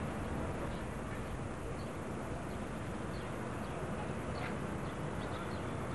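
Steady outdoor background noise with a few faint, short high chirps scattered through it.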